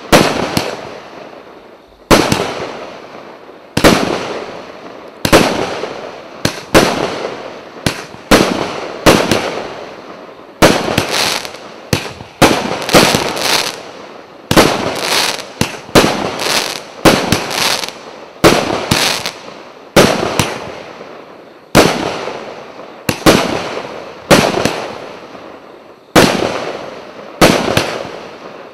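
A 49-shot, 1-inch fireworks cake (VH100-49-01 "Новый год") fires shot after shot, roughly one a second at uneven spacing. Each shot is a sharp bang followed by crackling that dies away.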